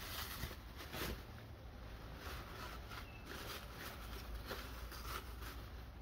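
Black plastic packaging wrap rustling and crinkling in irregular handfuls as it is handled and pulled off a new pressure washer, over a steady low rumble.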